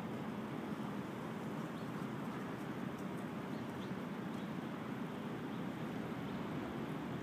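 Steady city background noise of distant traffic, with a few faint, short bird chirps over it.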